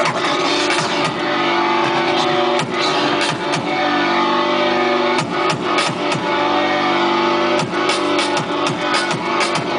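Hip hop beat played live by DJs through a sound system: a sustained, looping chord sample repeating about every two and a half seconds, with drum hits over it.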